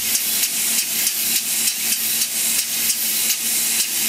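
Student-built compressed-air piston motor running, its exhaust air hissing in regular puffs about three a second. It is under load, braked by a wooden block pressed against its flywheel for a torque measurement.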